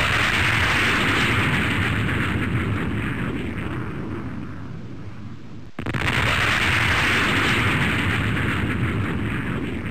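Jet aircraft passing at high speed as a boom and roar: loud at first, fading over about five seconds. A second sudden boom about six seconds in starts the same roar again.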